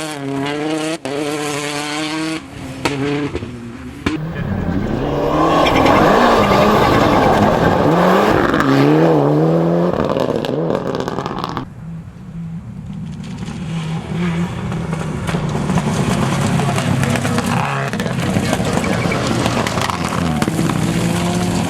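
Rally car engine revving hard and rising and falling in pitch through gear changes. About five seconds in, a loud rush of engine and tyre noise builds up as a car comes close and lasts several seconds. After a brief lull, another engine climbs and revs again.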